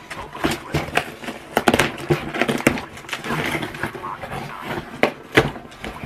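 Irregular clicks, taps and rustles of objects being handled close to the microphone, with faint voices underneath.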